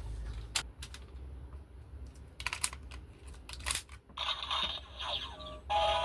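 A handful of sharp plastic clicks from a Super Sentai toy gun being worked, then about four seconds in the toy's electronic sound effect starts playing through its small speaker, a string of stepped electronic tones that gets louder near the end.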